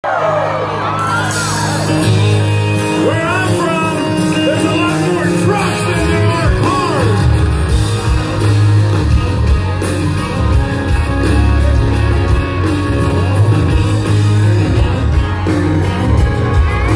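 Live country-rock band playing through a loud PA, with electric guitars, drums and a lead singer, heard from within the audience with a heavy, booming bass.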